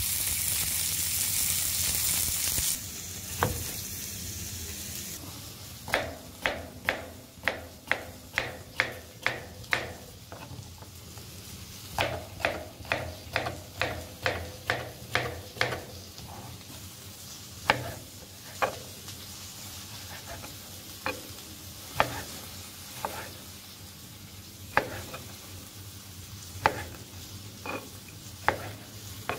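Chicken breast sizzling on a ridged grill pan for the first few seconds. Then a chef's knife chops down onto a white plastic cutting board, slicing cucumber and then cherry tomatoes: quick strokes about two a second in two runs, followed by slower single cuts.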